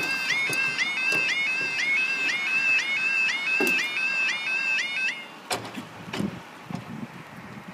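Level crossing's electronic warning alarm sounding a rapidly repeating warbling tone, about three warbles a second, as a warning that a train is coming. It cuts off suddenly about five seconds in.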